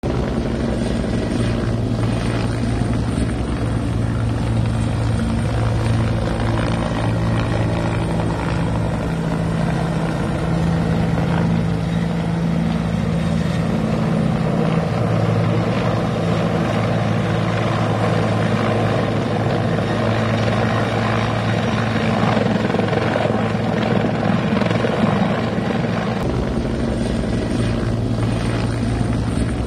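Helicopter running close by as it hovers low, with steady rotor and turbine noise. Its low tone drops away about halfway through and comes back strongly near the end.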